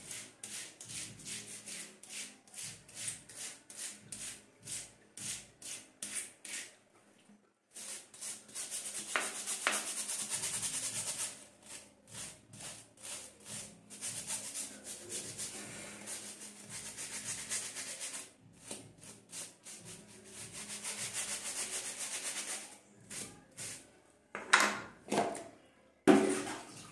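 A stiff-bristled scrub brush rubbed back and forth over the teeth of a plastic comb, in rhythmic strokes of about two a second with spells of faster, continuous scrubbing. Near the end come a few louder knocks.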